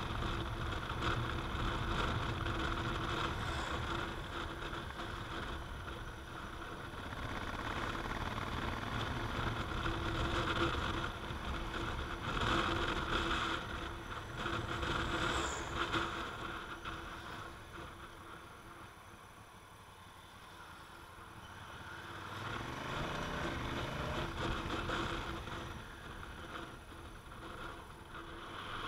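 Honda Africa Twin's parallel-twin engine running on the move, with wind and road noise on the bike-mounted microphone. About two-thirds of the way through it eases off and goes quieter, then rises in pitch as the bike accelerates again.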